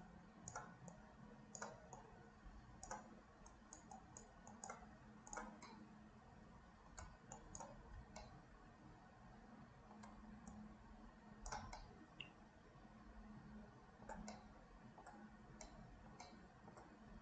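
Faint, irregular clicks of a computer mouse and keyboard, a few a second at most, over a low steady hum.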